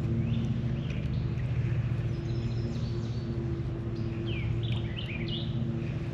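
Birds chirping in short, quick calls, several close together about four to five seconds in, over a steady low hum.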